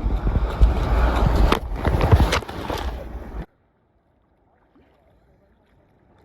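Ocean water sloshing and splashing around the phone, with wind rumbling on the microphone and a few sharp splashes. About three and a half seconds in the sound cuts off abruptly to near silence, and faint noise slowly returns near the end.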